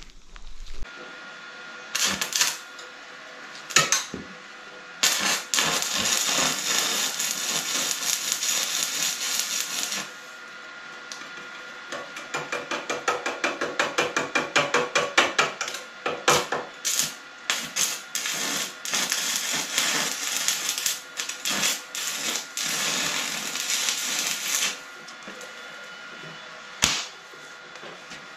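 Electric arc welding, tack-welding two steel pieces together: the arc crackles and hisses in stretches of several seconds, with short snaps as it is struck. About halfway through it comes as a quick stuttering run, and it stops a few seconds before the end.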